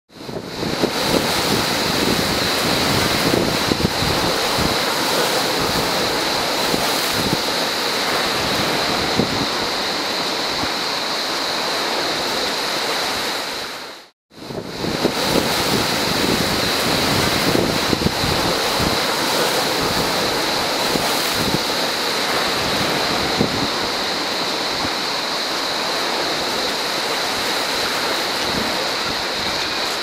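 Mediterranean surf breaking and washing over a rocky shore, with a steady high buzz of cicadas over it. The sound fades out for a moment near the middle, then returns.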